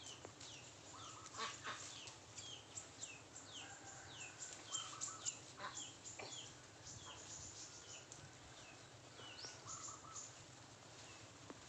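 A bird calling over and over with short, high chirps that drop in pitch, about three a second, pausing for a moment past the middle. A few faint knocks sound among them.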